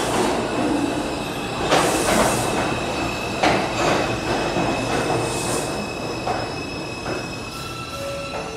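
An R142 subway train pulls into the station and passes close by. Its wheels squeal steadily on the rails, with several loud clacks as the cars roll over the rail joints.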